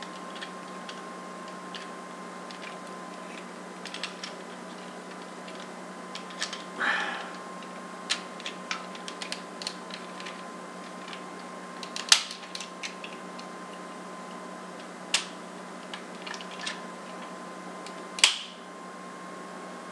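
Plastic parts of a Power Rangers High Octane Megazord toy clicking and rattling as they are handled and their pegs pushed into holes. The two sharpest clicks come about twelve and eighteen seconds in. A faint steady electrical hum runs underneath.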